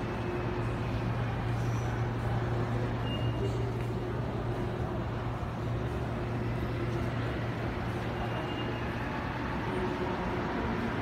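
Steady ambient noise of a metro station concourse: a low hum and rumble that eases near the end, with a couple of faint brief high tones.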